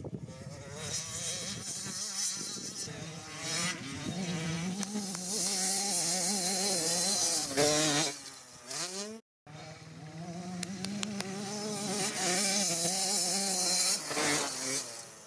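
Small two-stroke minicross dirt bike engine buzzing as the bike is ridden, its pitch rising and falling with the throttle. It drops away in a falling note before cutting off abruptly about nine seconds in, then comes back for a second stretch of riding that fades near the end.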